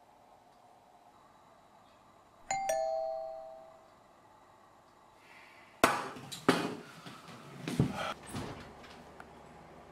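A doorbell chimes a two-note ding-dong, high then lower, ringing on for about a second. A few seconds later come a string of sharp thumps and knocks with rustling between them.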